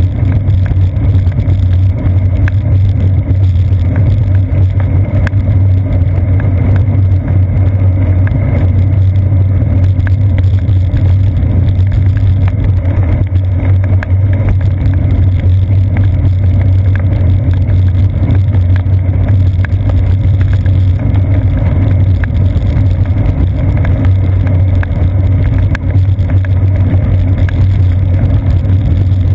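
Steady, loud low rumble of a bicycle rolling over wet pavement, picked up through the seat post by a mounted GoPro Hero 2, with frequent faint ticks.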